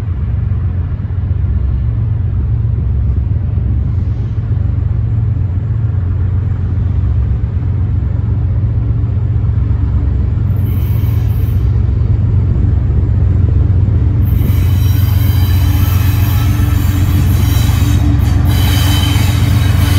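BNSF GE ES44AC diesel locomotive leading an empty coal train as it approaches: a steady low engine drone throughout. From about fourteen seconds in it grows louder, joined by high-pitched wheel-and-rail noise as the train draws close.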